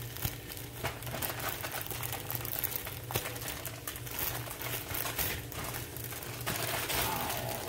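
A thin plastic food bag crinkling in irregular bursts as it is handled and folded shut, over a steady low appliance hum.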